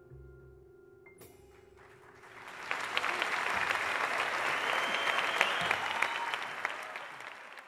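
The last chord of a Bösendorfer grand piano rings on and stops about a second in. After a short pause, an audience breaks into applause, which swells and then begins to fade near the end.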